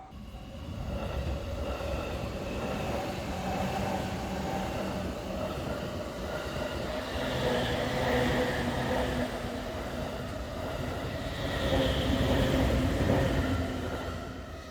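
Train passing on the JR Tokaido Line tracks. It comes up within the first second, swells twice, and fades away near the end.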